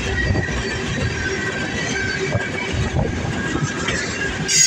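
CN freight train rolling past, its cars rumbling over the rails with a faint steady squeal from the wheels; a brief, louder high-pitched burst near the end.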